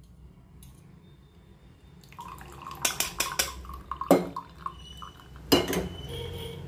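Metal kitchen utensils clinking and knocking as a boiled herbal decoction is strained, with liquid dripping and splashing through the strainer. It begins about two seconds in, with sharp knocks around the middle and near the end.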